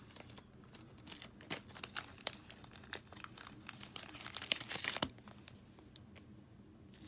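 Crinkling and crackling of trading-card pack wrappers and cards being handled: a run of small crackles, busiest around four to five seconds in, that stops suddenly about five seconds in.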